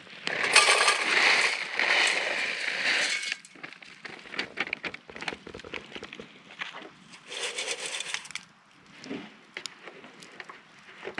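Dry dehydrated stew mix poured from a plastic pouch into a camp pot: a dense rattle of small dry pieces with crinkling plastic for about three seconds. Scattered light clicks follow, with a second, shorter rustle a little past halfway.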